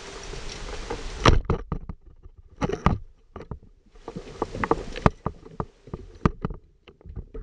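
Band-powered speargun fired underwater: a single loud, sharp crack about a second in, after which a steady hiss stops, followed by irregular clicks and knocks.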